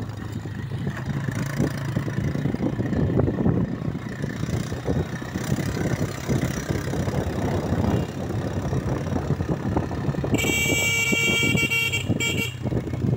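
Motorcycle engine running as it rides a rough dirt track, with frequent knocks and rattles. Near the end a horn sounds for about two seconds, with a brief break.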